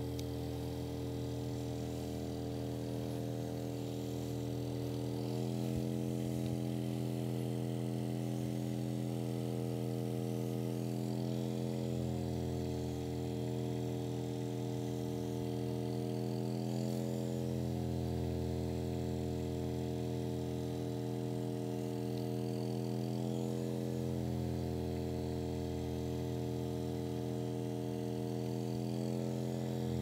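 Percussive massage gun running against the muscles of the upper back: a steady motor buzz whose pitch shifts slightly every few seconds.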